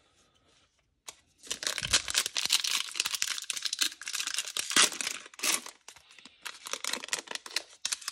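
Foil wrapper of a Panini Prizm football card pack being torn open and crinkled by hand. A dense run of crackling and tearing starts about a second in.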